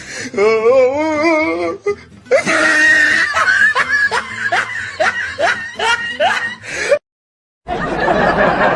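Laughing sound effects played back to back: first a wavering, warbling laugh, then a fast run of rhythmic 'ha-ha' laughs, each rising in pitch. Near the end, after a brief cut to silence, a different, noisier laugh clip starts.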